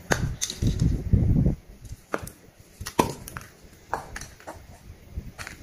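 Hands handling a butane refill can as its red plastic cap is pulled off: rubbing and handling noise for about the first second and a half, then a series of sharp clicks and taps at uneven intervals.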